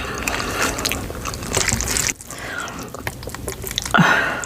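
Wet slurping and chewing of a mouthful of cheesy Buldak ramen noodles, full of small smacking clicks, loudest over the first two seconds and quieter after. A brief voiced sound from the eater comes about four seconds in.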